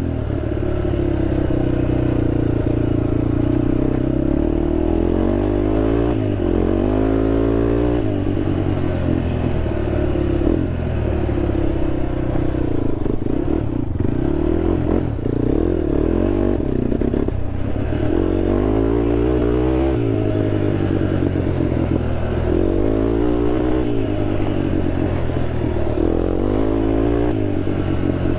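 Honda TRX sport quad's engine running under riding load, its pitch climbing and dropping again and again in steps as the throttle is worked and gears change. A rattle of the machine over rough ground comes through the engine sound.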